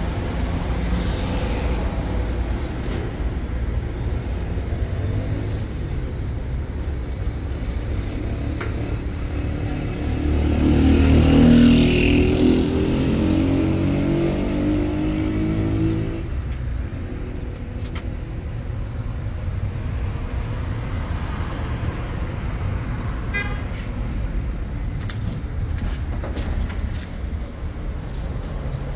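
Street traffic: a steady low rumble of vehicle engines, with one vehicle passing close by, its engine note growing about ten seconds in, loudest near twelve seconds and fading by sixteen. A few light clicks and knocks near the end.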